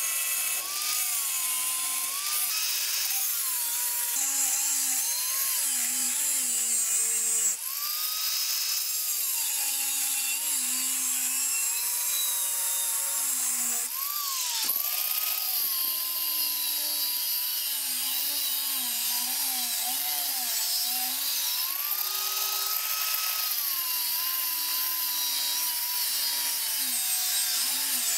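Angle grinder with an abrasive disc cutting a steel knife blank: a steady motor whine that dips and rises in pitch as the disc bites into the metal, over the hiss of grinding. The sound changes abruptly twice.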